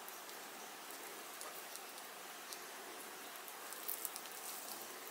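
A crisp fried pumpkin fritter being torn apart by hand: soft crackles and tearing over a faint steady hiss, with the sharpest crackles about four seconds in.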